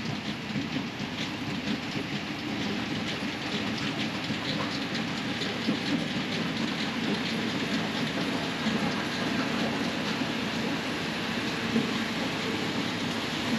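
A vehicle running steadily, with a continuous fine rattling clatter over its noise.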